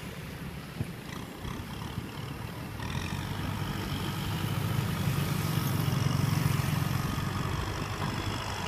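Kubota M6040SU tractor's diesel engine running as its front blade pushes a pile of soil, growing louder from about three seconds in.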